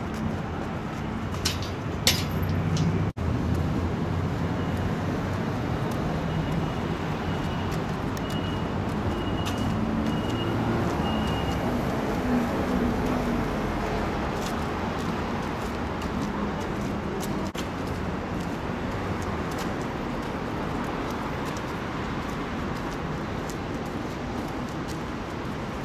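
Steady road traffic noise, with vehicle engines running, and a few sharp clicks about two seconds in.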